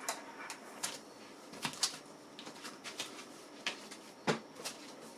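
Irregular light clicks and taps of hands working a laptop's keys and touchpad, about a dozen spread unevenly, the loudest a little past four seconds in.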